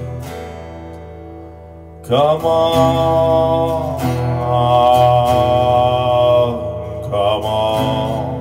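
Acoustic guitar ringing a droning chord that fades, then a man's voice comes in about two seconds in with three long held wordless notes over the guitar drone, chant-like.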